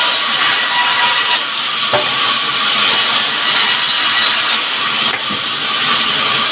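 Sawmill band saw cutting through a log: a steady, loud hissing rasp with a faint high whine from the blade.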